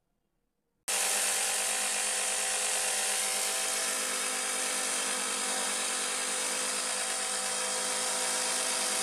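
Small battery-powered DC motors spinning the propellers of a homemade mini drone, switching on abruptly about a second in and running at full speed with a steady high whine.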